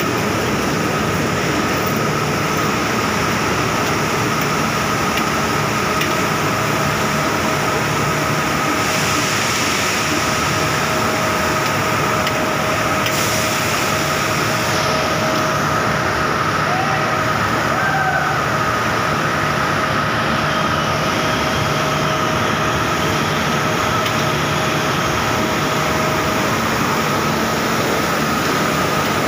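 Steady, loud machinery din of a steelworks continuous casting machine, with a high steady whine throughout and a lower steady tone that comes in a few seconds in and drops out near the end.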